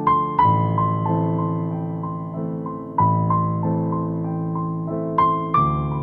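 Background piano music: a slow, gentle melody of single notes over held chords.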